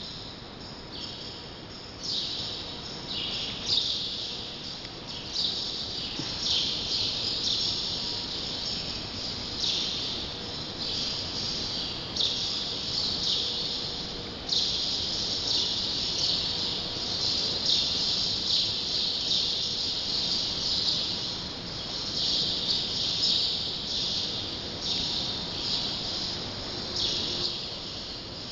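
Bottle labelling machine running, with a high hiss that keeps switching on and off abruptly every second or two over a steady low machine noise.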